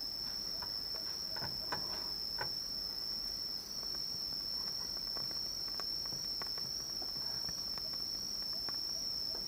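Insects chirring steadily in one high, unbroken tone, with a few faint clicks and taps in the first few seconds.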